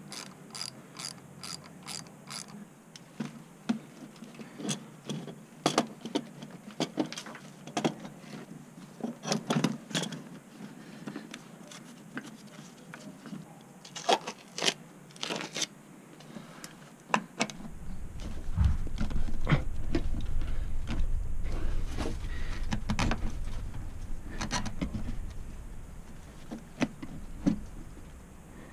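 Hand tools clicking and knocking against the metal parts of a 1980 Honda CX500 engine, starting with a quick even run of about six clicks. Over the last third a loud low rumble comes in under the tool sounds.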